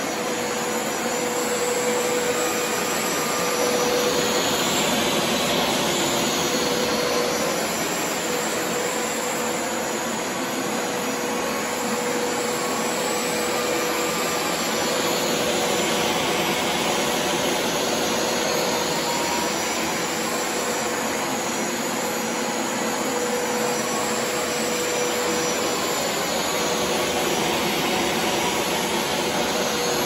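Hoover TurboScrub carpet washer running steadily while it shampoos a rug: a continuous suction-motor whine and hiss. The hiss swells and eases every ten seconds or so as the machine is pushed through slow passes.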